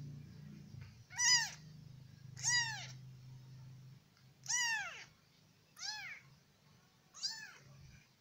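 A weeks-old ginger-and-white kitten mewing five times, about a second or so apart: short, high-pitched mews that rise and fall in pitch, the first two loudest.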